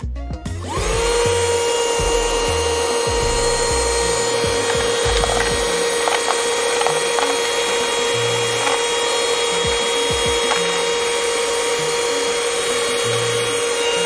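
Cordless handheld car vacuum switched on about half a second in, its motor spinning up to a steady whine and running continuously under suction. A few sharp clicks come partway through as coins are sucked up into it.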